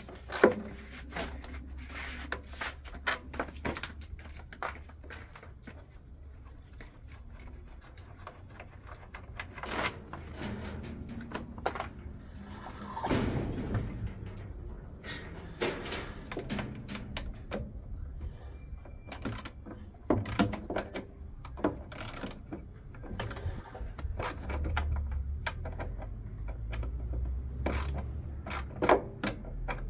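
Irregular clicks, knocks and clinks of tools and metal parts being handled while a washing machine drum is taken apart, with a brief scrape partway through and a low hum underneath.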